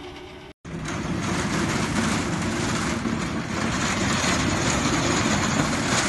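Small motorised speeder cart driving across a concrete yard: a steady rumbling noise that starts after a brief dropout about half a second in.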